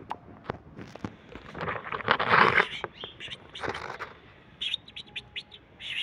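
Loud rustling noise about two seconds in and again briefly near four seconds, then small birds chirping in a run of short high notes near the end.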